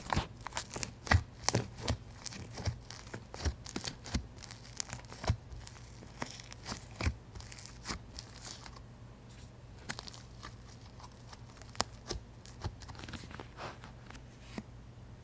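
Thick fluffy white slime being squeezed, pulled and poked by hand, giving off many small crackles and pops. The crackles are dense for the first eight seconds or so, then come only now and then.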